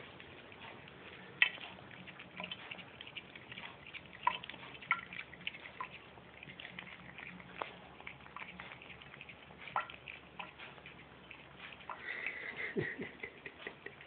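Two cats lapping water from a bathroom sink and its faucet: soft, irregular wet clicks and drips, busier near the end.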